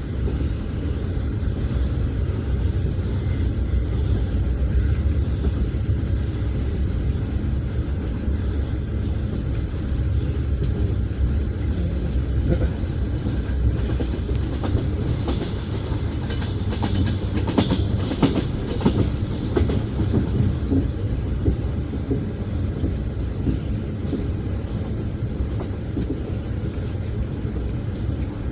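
Passenger train wheels clattering over the rail joints, with a steady low rumble, heard from inside an open-plan sleeper carriage. A run of sharper, louder clatters comes about two-thirds of the way through.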